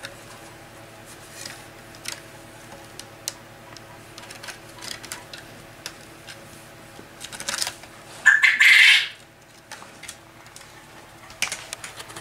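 Kittens' claws clicking and scratching as they scramble over a rope-wrapped post and wooden plank, in short irregular scrapes. About eight seconds in there is one louder rasping burst lasting under a second.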